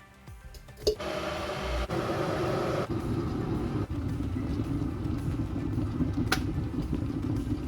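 Kettle heating water with lemon in it to descale it: after a click about a second in, a steady rumble of the water coming to the boil, with a brief sharp click a little after six seconds.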